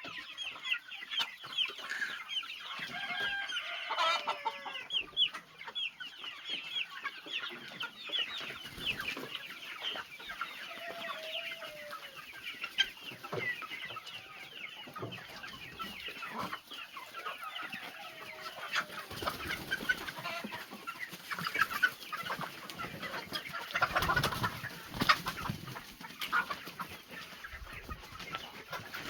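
A flock of young mixed-breed chickens, about two and a half months old, calling continuously as a dense chatter of short high cheeps and clucks. A few lower, drawn-out calls stand out now and then.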